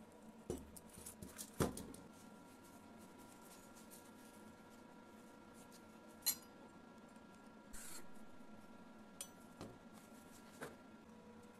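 Scattered faint knocks and clinks of welded steel parts, a leaf spring and a steel pipe, being handled on a wooden deck. The loudest knock comes about a second and a half in and a sharp clink a little after six seconds, with a brief scrape near eight seconds, over a faint steady hum.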